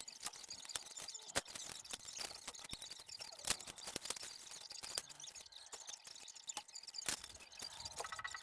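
Stiff wire being bent and handled, giving irregular light clicks and ticks. Just before the end a faint rapid pulsing tone starts.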